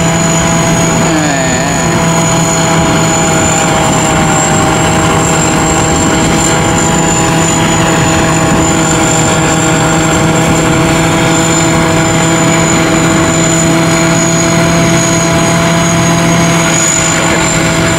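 Sit Charoen Kan Chang tracked rice combine harvester running steadily under load while cutting and threshing rice: a loud, even drone of the engine and threshing gear with a thin high whine over it.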